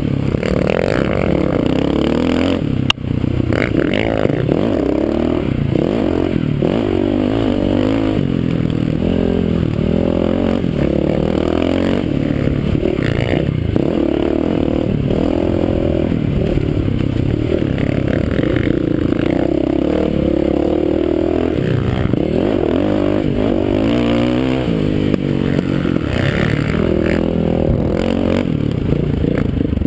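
Dirt bike engine heard close up, revving up and down continuously as it is ridden hard through the gears, with a sharp knock about three seconds in.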